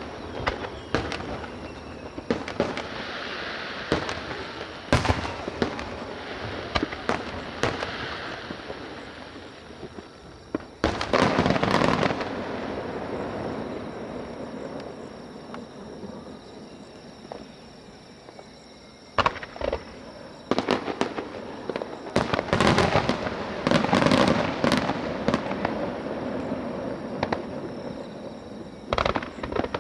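Aerial fireworks bursting: a string of sharp bangs with crackling between them, coming in dense volleys about 11 seconds in and again from about 19 to 25 seconds.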